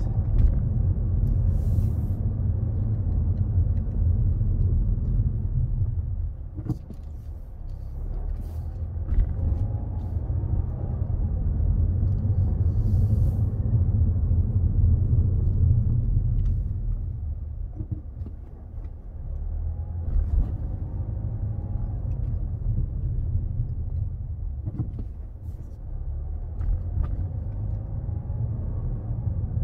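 Car driving slowly, heard from inside the cabin: a steady low rumble of engine and tyres that dips and rises again a few times.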